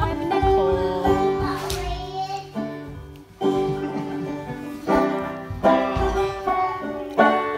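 Banjo music in a bluegrass style, plucked notes over a steady tune.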